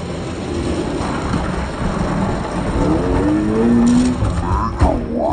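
Diecast toy monster trucks rolling fast down a plastic orange drag track, a rumble that builds as they come down, then a sharp clack near the end as they reach the finish gate.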